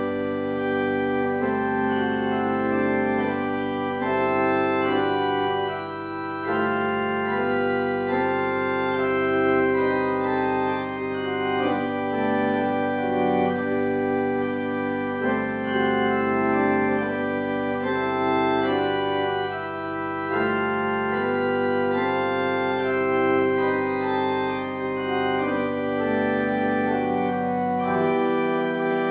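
Church organ playing a slow piece in sustained chords, with a low bass note held underneath until near the end.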